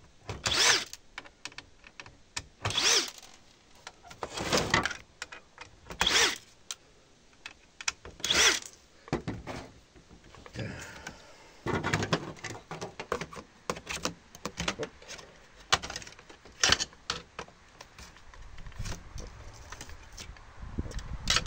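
Cordless drill running in five short bursts over the first nine seconds, backing screws out of a monitor's sheet-metal back frame. Then clicks and knocks of the metal frame being handled.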